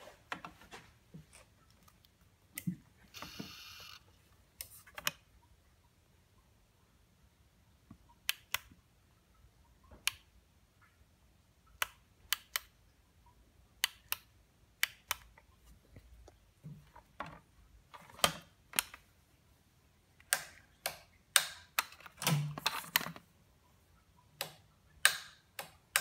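Scattered sharp clicks and light knocks from hands handling metal motorcycle parts, denser in a cluster later on, with a few duller thumps and a brief hiss about three seconds in. No engine is running or cranking.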